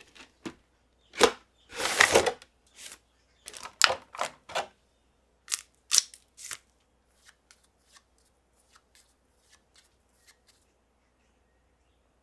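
Cardboard and plastic toy packaging being handled and opened: sharp scrapes and clicks, with a longer rustling scrape about two seconds in, then lighter scattered ticks in the second half.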